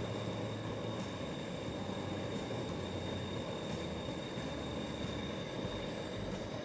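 Sugar syrup at a full boil in a wide pan, bubbling steadily, with rasmalai cheese discs cooking in it.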